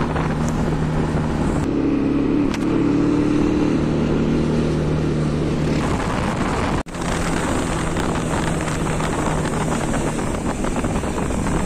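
Motorcycle engine running at a steady pace while riding, with wind rushing over the microphone. The sound cuts out for a moment about seven seconds in, then resumes.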